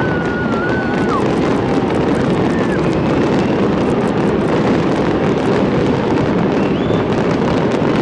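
Fireworks display going off in a dense, continuous crackle and rumble, with a short whistle in the first second.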